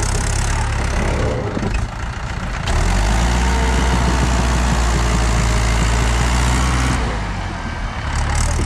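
Mahindra 575 tractor's diesel engine running, then opening up from about three seconds in and holding a louder, deeper note for about four seconds as it pulls a loaded sand trailer through soft sand, before easing off near the end.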